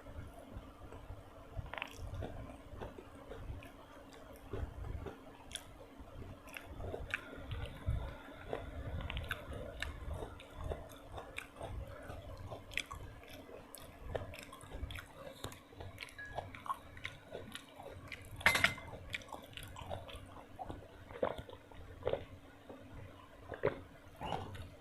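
Close-miked chewing and biting of food, with irregular small mouth clicks and crunches over a faint steady hum. One sharper, louder click comes about three-quarters of the way through.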